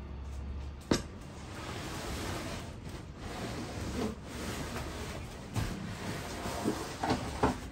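Rustling and scraping of packaging being handled, with a sharp knock about a second in and a few smaller knocks near the end.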